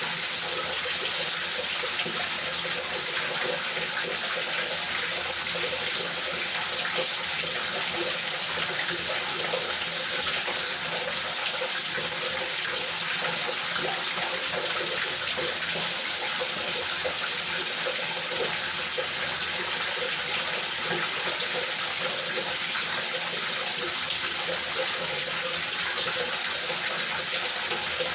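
Rain falling steadily: an even hiss with fine patter and no thunder.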